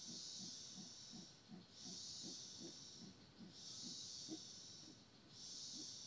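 Rainforest insect chorus, faint, pulsing in long waves of high hiss about every two seconds. Soft, rapid low pulses run underneath.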